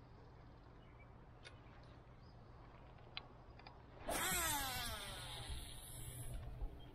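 Baitcasting reel casting: the spool whines, falling in pitch as it slows, over the hiss of line paying out. It starts suddenly about four seconds in and lasts about two seconds.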